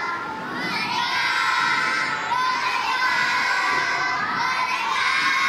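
Young children's choir singing together in unison, holding long notes with glides between them, the voices close to shouting.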